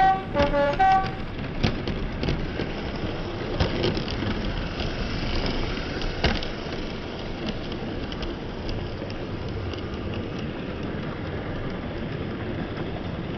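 OO gauge model train, a class 37 locomotive hauling test coaches, rolling past close by: a steady rumble of wheels and motor on the track, with occasional sharp clicks over rail joints. It opens with two short horn toots in the first second.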